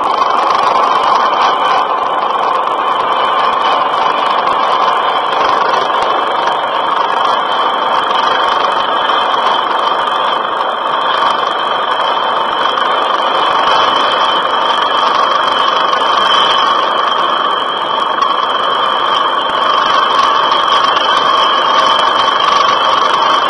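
Helicopter running close by, a loud, steady engine-and-rotor drone with a high whine over it.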